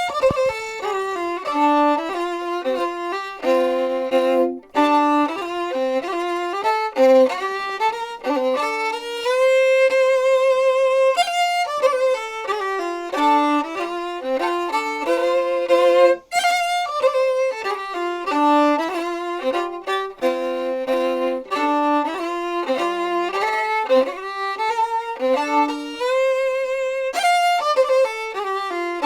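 Background music led by a fiddle, playing a quick melody in short notes with a few held ones.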